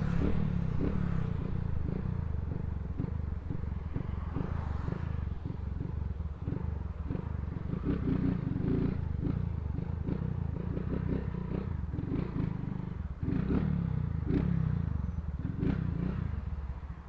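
Motorcycle with a loud aftermarket exhaust running while riding, its engine note rising and falling, then dropping off in level near the end.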